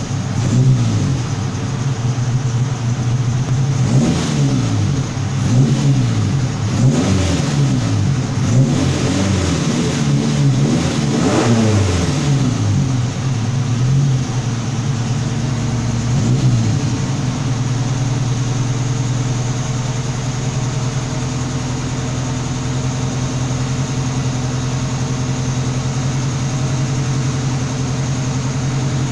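Volkswagen Gol's engine revved in repeated quick throttle blips for the first twelve seconds or so, once more a few seconds later, then idling steadily. It makes a strange noise, which the owner suspects is the valves being struck because the compression ratio is too high, though he allows it may be something else.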